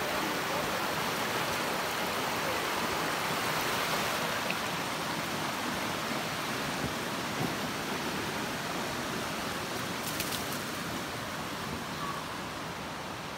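Steady rush of a rocky forest creek, slowly growing fainter toward the end.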